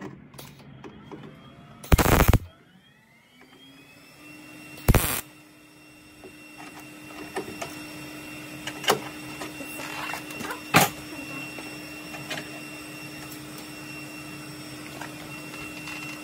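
Wire-feed welder striking short tack welds on a thin sheet-metal patch: two brief bursts of arc noise about three seconds apart. After them come a steady hum and a few sharp clicks.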